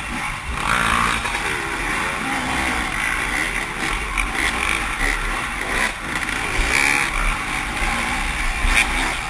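Off-road dirt bike engine revving up and down as it is ridden around a race course, its pitch rising and falling constantly, under heavy wind and rumble noise.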